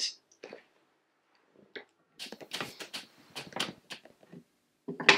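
Crockery clattering on a table: a cup handled and set down on a mat or coaster, in a quick run of light clicks and knocks, with one more knock near the end.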